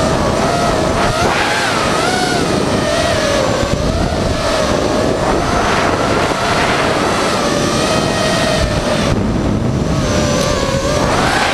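FPV racing quadcopter's brushless motors and propellers whining, the pitch wavering up and down as the throttle changes, over a steady rush of air.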